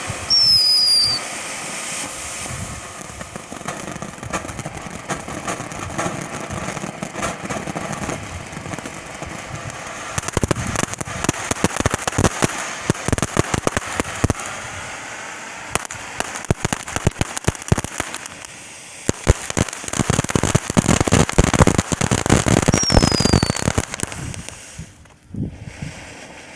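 Consumer fireworks going off. A short falling whistle and a loud burst open the sequence, then long runs of rapid crackling pops that grow dense and loud from about ten seconds in, with another falling whistle near the end before it dies away.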